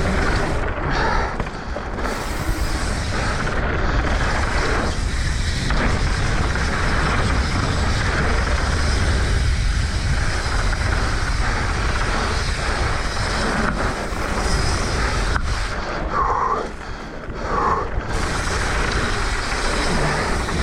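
Mountain bike riding fast down a dirt trail: a steady rush of wind rumble on the microphone over tyre noise and the bike's rattle.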